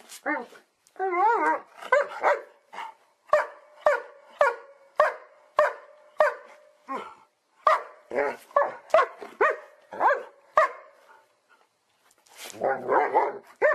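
A dog barking in a long run of short, sharp barks, about two a second, with wavering, warbling calls about a second in and again near the end.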